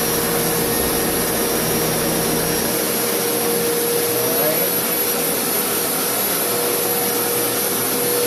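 Rug Doctor Deep Clean carpet cleaner running on carpet: a steady rushing suction-motor noise with a constant whine. Its deepest hum drops away about three seconds in.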